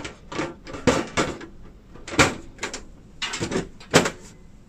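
Side cover of a Dell Precision 7920 tower workstation being slid back onto the chassis and pressed into place by hand: a string of about ten short knocks, clicks and sliding noises.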